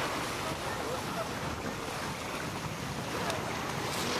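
Steady wash of surf on the shore, mixed with wind rumbling on the microphone.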